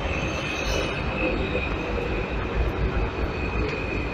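Alstom AS-02 metro train running past along the platform as it enters the station: a steady, dense rumble of wheels and running gear with a steady high tone above it.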